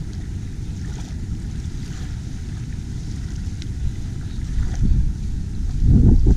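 Wind buffeting the camera microphone, a low rumble that swells in gusts about six seconds in, over the soft wash of shallow lagoon water at the shoreline.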